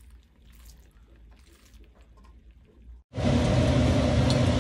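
Faint scraping and tapping of a spatula tossing a stir-fry in a wok. About three seconds in, a sudden cut brings a loud, steady hum with hiss: kitchen noise at the gas stove while cauliflower deep-fries in oil.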